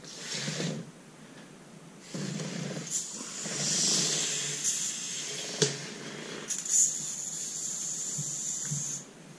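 CO2 inflator hissing into a Maxxis Aggressor tubeless mountain bike tire through its Presta valve: a short burst, then a long blast of about seven seconds that cuts off suddenly. Several loud, sharp snaps ring out during the blast as the tire bead pops up onto the rim.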